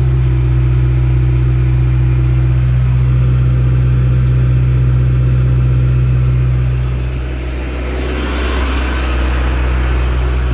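Diesel engine of an HZM 45-12T tractor-loader-backhoe running steadily. Its note shifts about seven seconds in, and a gritty, rattling noise joins about a second later.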